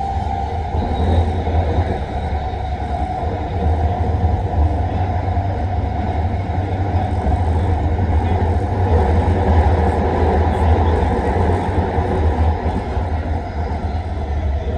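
Metro train running, a loud steady low rumble.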